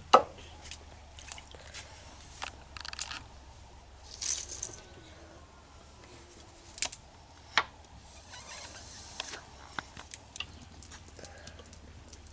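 Metal spoon knocking and scraping in an aluminium pressure cooker of kolai lentils, with scattered clinks of other metal utensils. A sharp clank comes right at the start and is the loudest, and two more clanks follow in the middle.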